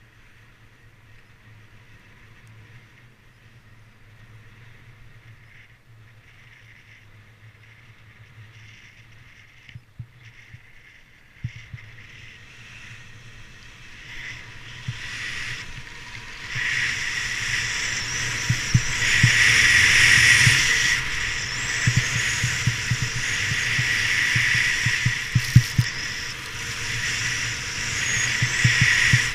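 Hiss and scrape of edges sliding over packed, groomed snow on a downhill run, with low thumps of wind buffeting on a body-mounted camera. Quiet at first, it grows much louder from about twelve seconds in as speed builds.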